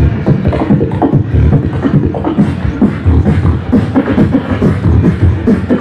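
Live beatboxing into a handheld microphone through a PA: a steady rhythm of mouth-made kick and snare hits woven with short pitched vocal sounds.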